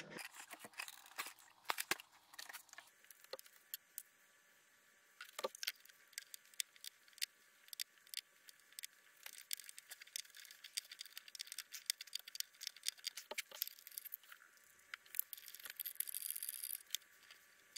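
Faint, scattered clicks, taps and light scrapes of small hand tools and parts being handled, with a screwdriver working at the model's nose.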